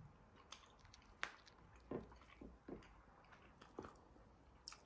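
Quiet eating sounds: a man chewing a forkful of food, with a few short, scattered mouth noises and a couple of light clicks, like a fork against a plate.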